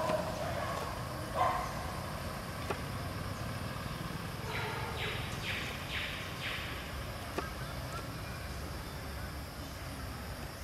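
Steady low outdoor rumble, like distant traffic, with a knock about a second in and a quick run of four or five short notes around the middle.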